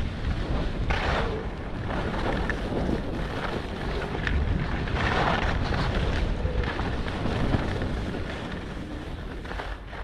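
Wind buffeting the microphone while skiing downhill, a steady rumbling rush, with hissing swells of skis scraping over snow, strongest about a second in and around five seconds in.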